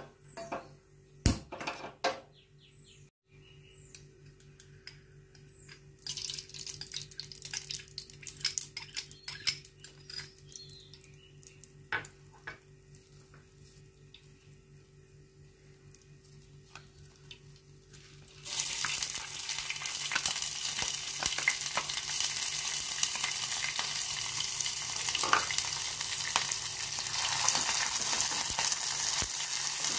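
A few knocks of a saucepan being handled on a gas stove, then ghee crackling faintly as it melts in the hot pan. About two-thirds of the way in a loud steady sizzle sets in: rice frying in the hot ghee while it is stirred with a spoon. A faint steady hum lies underneath.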